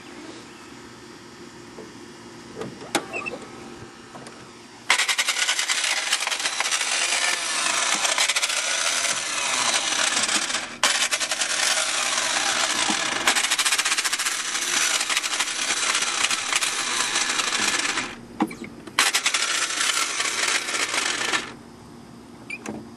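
Nissan 300ZX starter motor whirring and grinding with a harsh metallic rattle in three long bursts, the engine never turning over. The starter motor has sheared away from its housing, so its shaft spins freely against the inside of the starter gear instead of driving the flywheel. The first few seconds hold only a faint steady hum.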